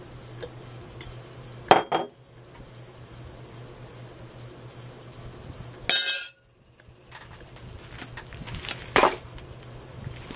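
A metal spoon clinking against a ceramic bowl: a few separate knocks, the loudest a ringing clink a little past halfway, over a low steady hum.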